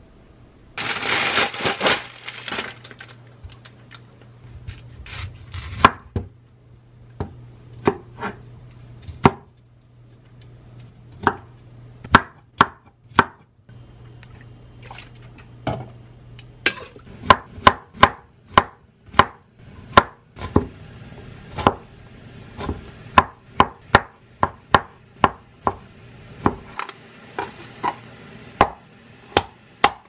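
A brief rush of running water about a second in, then a kitchen knife striking a wooden cutting board: single knocks at first, then quick runs of two or three strokes a second through the second half.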